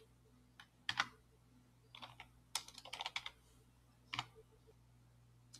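Computer keyboard typing: scattered single keystrokes and a few short runs of keys, the quickest run a little past the middle.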